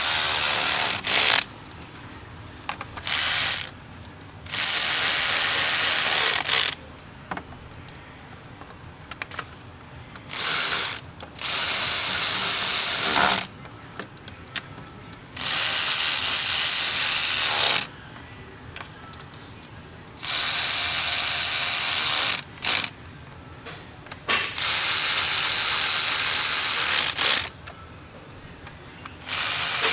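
Ratchet running in short bursts of one to three seconds, about nine times, snugging down fasteners on a fuel injector rail, with pauses between each bolt.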